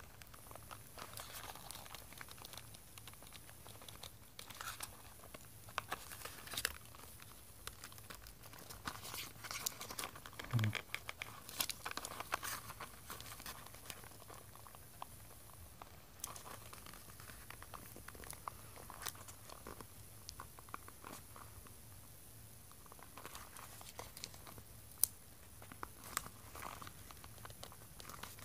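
Faint rustling and crinkling of packaging being handled, with scattered small clicks and snaps, as the fidget cube is worked loose from its plastic casing.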